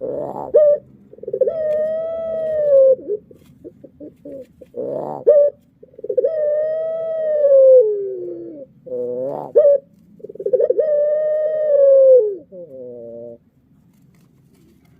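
Puter pelung dove, a domestic ringneck dove variety, cooing: three long drawn-out coos, each led in by a few short clipped notes, the coos arching slightly and falling away at their ends.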